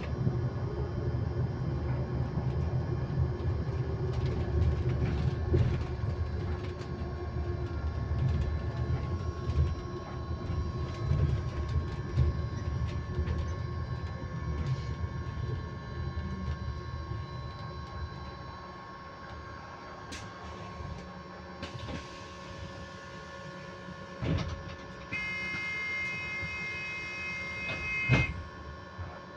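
Inside an electric bus: a steady, constant-pitch whine over the rumble of the moving bus, the rumble easing off about two-thirds of the way through. Near the end a brighter set of higher electronic tones sounds for about three seconds and stops with a knock.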